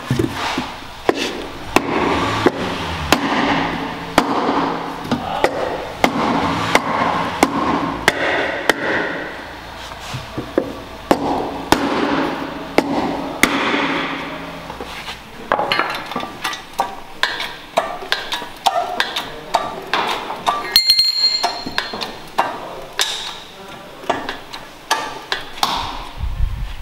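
Heavy hammer striking a block held against the crash-damaged inner wheel arch of a VW Polo, straightening the bent sheet metal: a long run of sharp blows, about one or two a second, with a short metallic ring a little past two-thirds through.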